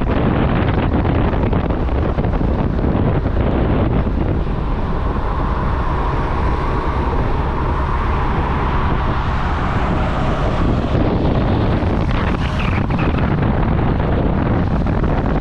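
Wind rushing over the microphone of a moving motorcycle, with the bike's engine and road noise running steadily underneath.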